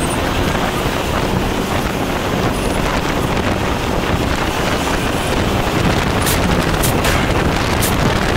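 Steady wind rush on the microphone with road and traffic noise from a motorcycle riding through city traffic, with a few faint high ticks in the second half.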